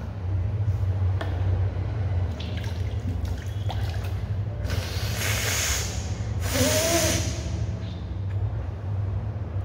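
Water being vomited back up and splashing down during Kunjal Kriya, the yogic water-cleansing practice, with two loud gushes about five and seven seconds in. A short gagging sound comes with the second gush.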